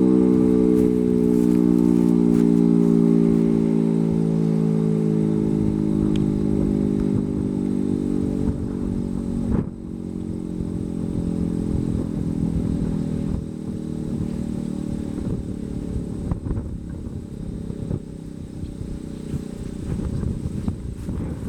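Mechanical outdoor warning siren winding down after power is cut, its tone sliding slowly lower and fading as the rotor coasts to a stop. There is a rumbling noise underneath and a single knock about halfway through.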